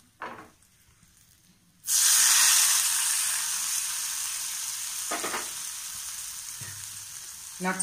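Hot sesame-oil tempering of mustard seeds, urad dal, curry leaves and asafoetida hitting mashed curd rice and sizzling. The sizzle starts suddenly about two seconds in and slowly fades.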